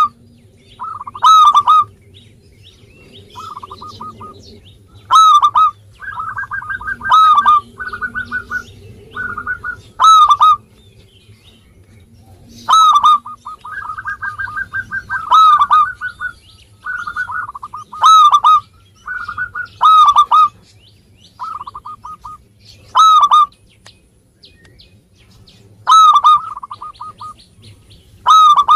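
Zebra dove (perkutut) cooing: loud call notes come every two to three seconds, with runs of quick, softer notes between them.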